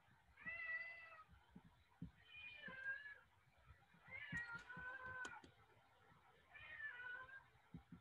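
House cat meowing, four drawn-out calls about two seconds apart, each falling in pitch, the third the longest.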